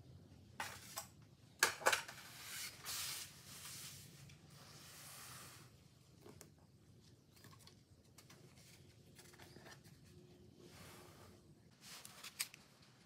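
Handling noises as the cake board on the metal turntable is gripped and moved: a few sharp clicks and knocks, then a soft scraping rustle, with another short cluster of clicks near the end.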